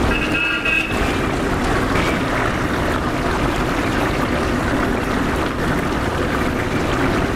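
Batter-stuffed green mussels deep-frying in hot sunflower oil: a steady, dense sizzle. A brief high-pitched tone sounds over it in the first second.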